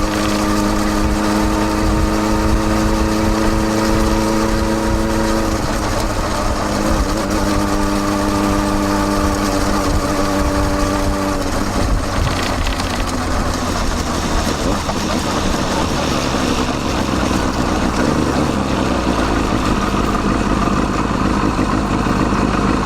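Kawasaki Balius 250cc inline-four engine heard through a Wr's exhaust with its baffle fitted, close up from a mic on the silencer. It holds a steady pitch for the first half, with a brief change about five seconds in, then turns rougher and noisier about halfway through.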